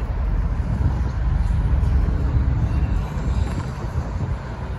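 Road traffic: cars driving past over a railroad grade crossing, tyre and engine noise swelling and easing as they pass.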